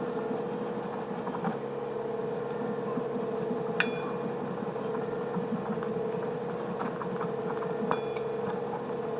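Block of cheese being rubbed on a metal hand grater, a faint repeated scraping, over a steady hum. Two sharp clinks, one about four seconds in and one near the end.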